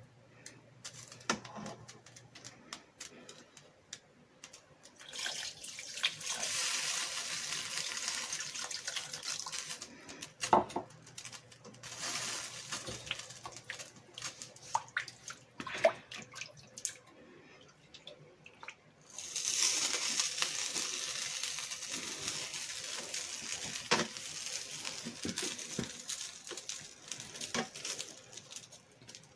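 Water running in three stretches of steady hiss, the last starting abruptly, with scattered clinks of a utensil against the pan.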